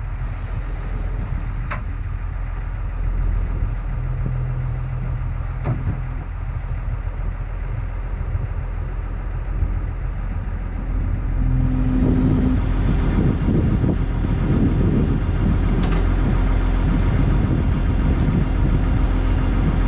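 Diesel engine of a John Deere 544G wheel loader running steadily while it holds and sets down a suspended CAT 259D track loader on a chain. The engine gets louder from about twelve seconds in.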